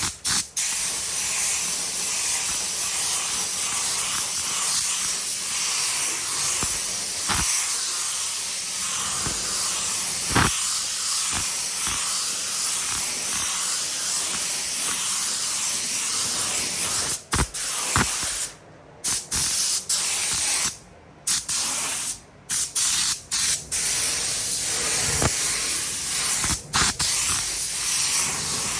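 Compressed-air paint spray gun hissing steadily as paint is sprayed. It cuts off briefly several times in the second half as the trigger is let go and squeezed again.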